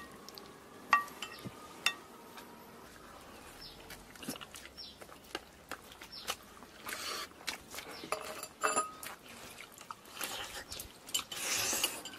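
Chopsticks clicking and clinking on porcelain plates and bowls, the two loudest clinks about 1 and 2 seconds in with a short ring. There are soft mouth noises of eating between them.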